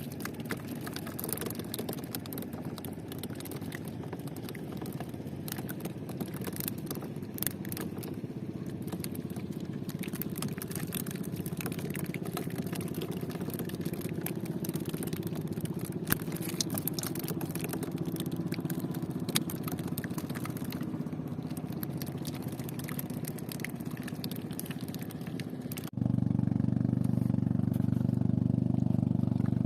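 A small engine running steadily, with scattered clicks and rattles over it; about 26 seconds in it suddenly gets louder and heavier.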